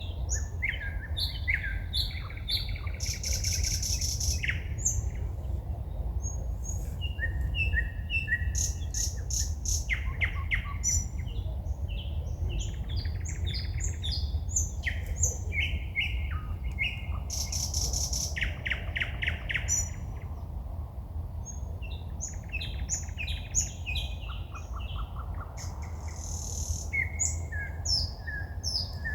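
Forest songbirds singing at night: a varied song of short whistled notes and phrases, broken several times by fast rattling runs of repeated clicking notes, over a steady low rumble.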